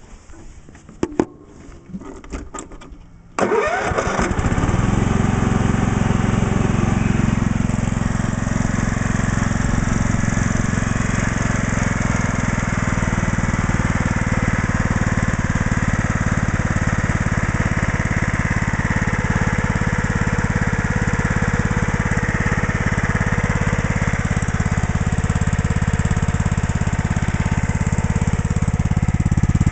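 A few clicks, then the Kohler engine of a Scotts lawn tractor starts abruptly about three seconds in and runs steadily. Its owner believes the engine is a 16½ horsepower unit.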